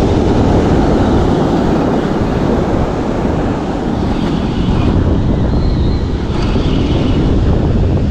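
Wind buffeting the microphone over breaking ocean surf, a steady rushing noise heaviest in the low end.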